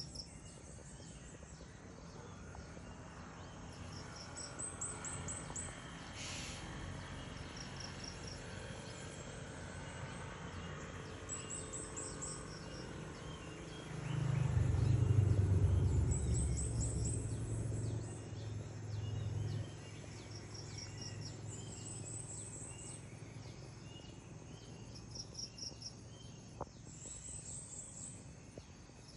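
Insects and birds in a tropical garden: a steady high buzz, with short, rapid chirping trills every few seconds. In the middle a low rumble swells for about five seconds and then fades.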